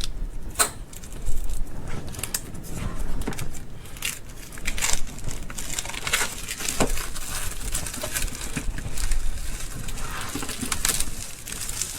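Packaging being handled and removed: crinkling and rustling with scattered sharp clicks and crackles.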